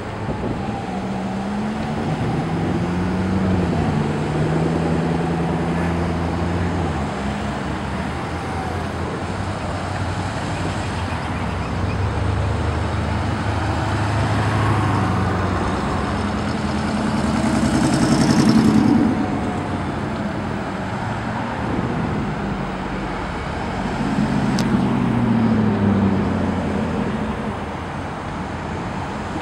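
A procession of Corvettes rolling past at low speed, their V8 engines running with engine notes that rise and fall as each car accelerates by. The loudest pass comes about eighteen seconds in.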